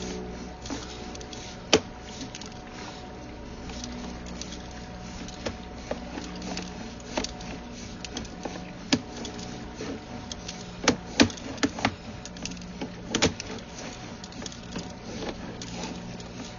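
Sewer inspection camera rig: a steady low hum with irregular sharp clicks and knocks as the camera's push cable is pulled back through the pipe, the knocks clustering about 11 to 13 seconds in.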